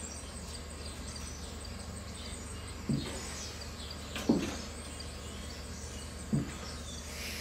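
Solvent poured from a metal can onto a shop rag, heard as three short, soft glugs a second or two apart over a steady low hum.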